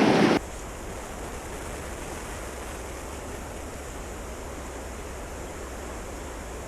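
Steady rushing of a fast-flowing creek's current.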